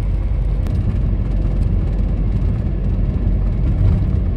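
Steady low rumble of a car's road and engine noise heard from inside the cabin while driving at highway speed on a rain-soaked road.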